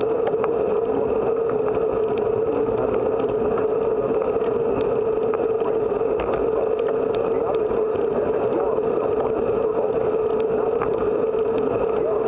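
Wind and road noise on a camera mounted on a bicycle moving at speed: a steady rush with a steady hum running through it, and scattered light clicks.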